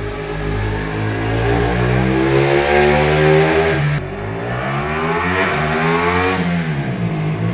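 Ducati 899 Panigale's Superquadro V-twin engine revving up hard under acceleration, its pitch climbing. After a sudden break about four seconds in it climbs again, then falls away near the end.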